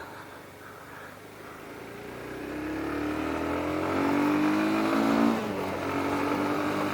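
A motor vehicle engine accelerating, growing louder over a few seconds; its pitch drops about five seconds in, then it runs on steadily.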